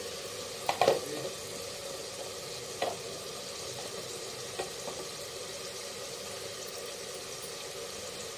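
Tomato masala sizzling steadily in an open pressure cooker with fresh coriander, fenugreek and mint leaves just tipped in. There are a couple of sharp clinks against the pot in the first three seconds.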